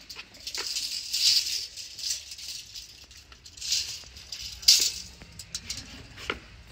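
Steel tape measure blade rattling and scraping against a concrete wall in a few short bursts, with scattered sharp clicks; the loudest burst is near the end.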